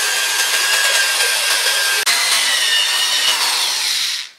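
Cordless drill spinning a 38 mm core bit that grinds through a wet ceramic candle holder: a harsh, steady grinding with a faint high whine, breaking off for an instant about two seconds in and stopping shortly before the end.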